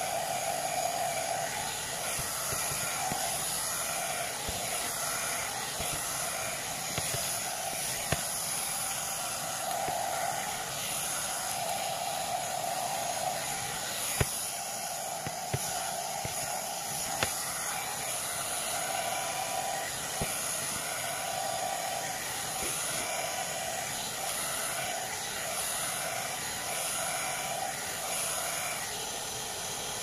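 Hot-air brush (3-in-1 hair dryer, straightener and volumizer) running on its medium setting: a steady rush of air and motor whir that swells and fades a little every couple of seconds as the brush is drawn through the hair. A few sharp clicks.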